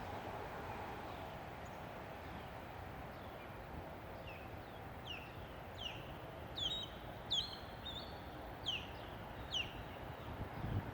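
A bird chirping: a series of short, high, falling chirps, coming more often from about three seconds in, over a steady low background noise.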